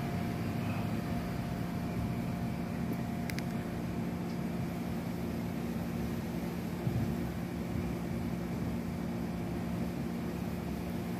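Steady low mechanical hum holding a few fixed tones over a broad background noise, with a faint click about three seconds in and a soft bump near seven seconds.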